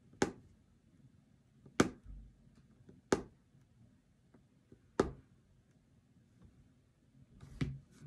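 Punch needle being pushed through stretched fabric, each stroke a sharp click or pop: five of them at uneven gaps of one to two and a half seconds.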